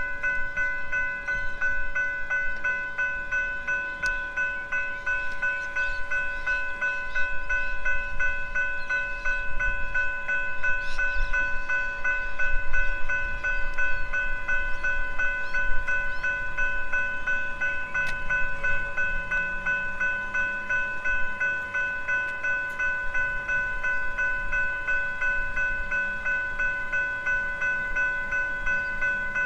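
Railway level-crossing bells, General Signals Type 3, ringing continuously with fast, evenly spaced strokes while the crossing's warning lights flash and the boom gates are lowered.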